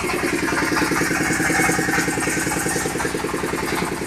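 Small engine driving a concrete-block (batako) making machine, running steadily with an even, fast beat.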